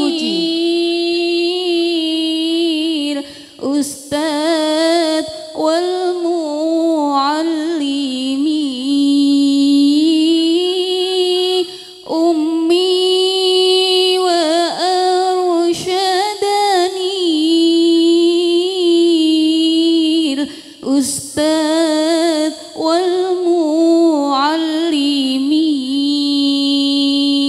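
A woman's voice singing a slow, ornamented melody in long phrases, with held notes that waver in pitch and short breaths between phrases.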